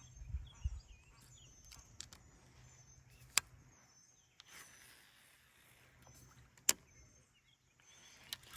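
Quiet background with a faint low hum, broken by two sharp single clicks about three seconds apart.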